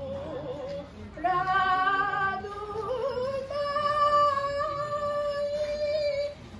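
A woman's voice singing an Okinawan usudeku ritual song unaccompanied, in long held notes with a wide wavering vibrato. A new phrase begins about a second in, glides upward around the middle and is held on one note until near the end.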